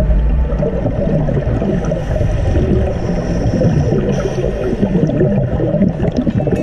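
Underwater sound picked up by a camera in a pool: a dense, muffled low rumble and gurgling of water and scuba divers' exhaled bubbles.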